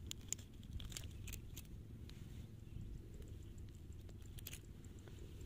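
Faint scattered clicks and rustles of a caught fish and fishing tackle being handled, over a low steady rumble.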